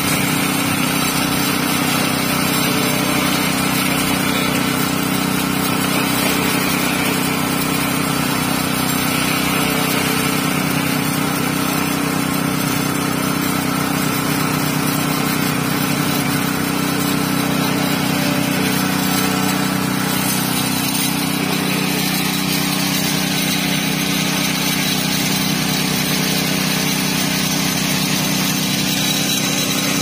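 Concrete poker vibrator running with a steady drone as its flexible shaft is worked through wet concrete.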